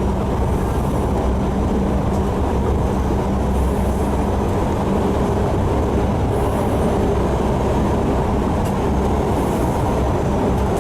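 Bus running along the road, heard from inside the cabin: a steady low rumble of engine and tyre noise.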